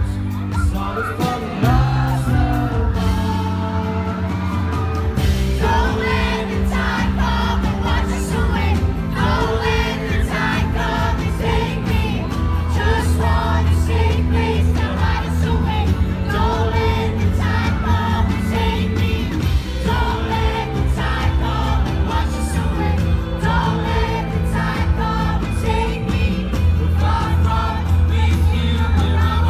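Live pop band performing: a man singing over strummed acoustic guitar, with electric guitar and violin in the band. The arrangement gets fuller about five seconds in.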